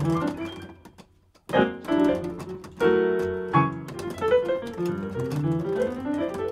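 Casio digital piano played with both hands: the playing trails off into a brief pause about a second in, then comes back with loud struck chords and a held chord, followed by quick rising runs of notes.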